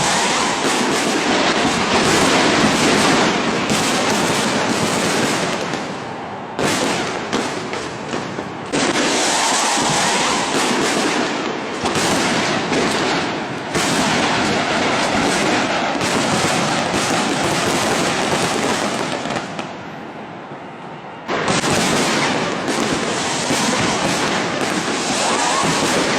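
A dense, continuous barrage of fireworks going off close by, with a short lull about twenty seconds in before it suddenly comes back at full strength.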